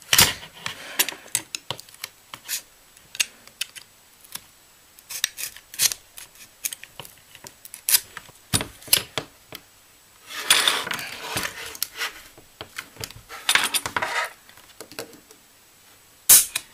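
Snap-off utility knife blade scraping and clicking against a laptop battery pack's plastic casing as it is cut open along the seam: a string of short sharp scrapes and clicks, with two longer scraping strokes a little past the middle.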